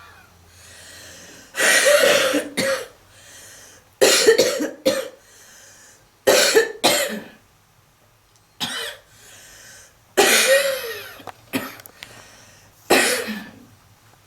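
A smoker's heavy coughing fit: about a dozen loud coughs in clusters of one to three, a second or two apart, with quieter breaths drawn in between.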